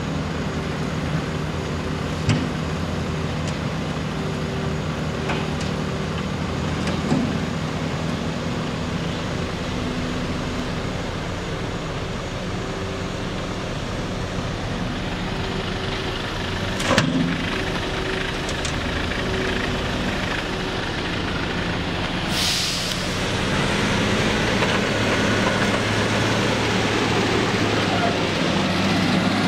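Diesel engine of a Caterpillar motor grader running steadily as it grades a dirt road, with a compactor roller's engine behind. A couple of sharp knocks stand out, and there is a short hiss about two-thirds through, after which the engine sound grows a little louder.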